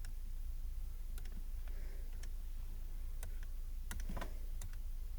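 Scattered light clicks, about eight at irregular intervals, from computer input during drawing, over a steady low hum.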